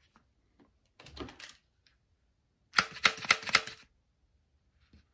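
Small hard plastic toy figures clicking and clacking as they are handled and set down: a soft knock about a second in, then a quick run of sharp clicks lasting about a second.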